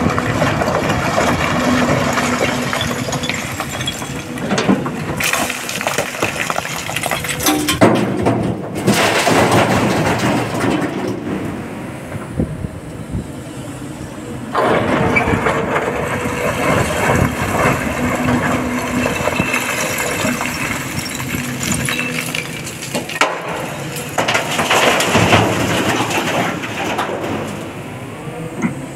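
SANY crawler excavator digging blasted quarry rock: its diesel engine runs under load while the steel bucket scrapes and crunches through broken stone and loose rocks clatter and grind. The noise eases for a couple of seconds near the middle.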